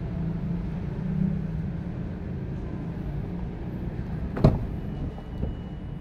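The Mitsubishi Xpander's front door latch releasing as the door is pulled open: one sharp click about four and a half seconds in, then a smaller knock about a second later, over a steady low background rumble.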